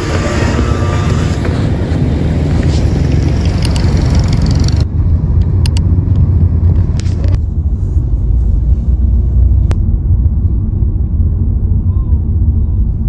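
Car driving along a road, heard from inside: a steady low road and engine rumble. A broad rushing hiss rides over it for the first five seconds or so and then cuts off suddenly, leaving the rumble.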